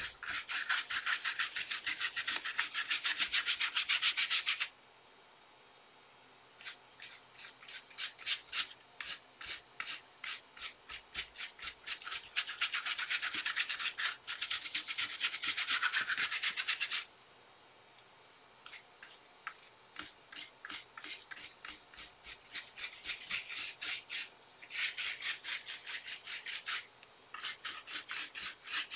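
Flat paintbrush scrubbing a thin coat of paint mixture into paper with rapid back-and-forth strokes. The strokes come in three runs, with a short pause after about five seconds and another near the middle.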